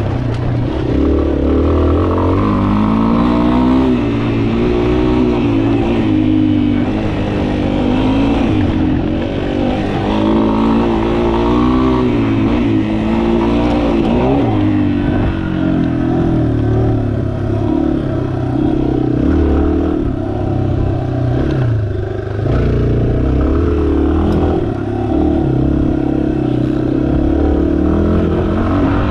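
Yamaha XT250's air-cooled 250 cc single-cylinder engine running under way, its pitch rising and falling again and again as it accelerates and eases off.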